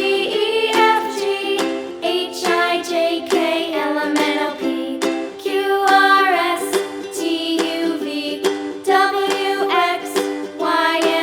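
Background music: plucked strings picking out a steady rhythm under a bending melody line.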